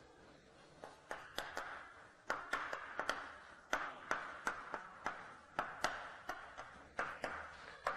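Chalk writing on a blackboard: a string of sharp taps as the chalk strikes the board, with scratchy strokes between them, starting about a second in.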